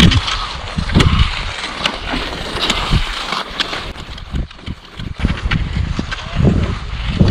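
Cross-country skis swishing along a groomed classic track, in a rhythm of about one stride a second, with a few short clicks from the poles.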